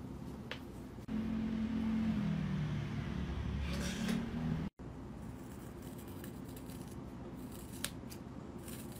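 Scissors snipping through a thick lock of long hair: a few sharp, crisp snips near the end. Earlier, from about a second in, a louder low hum steps down in pitch for a few seconds and cuts off abruptly about halfway through.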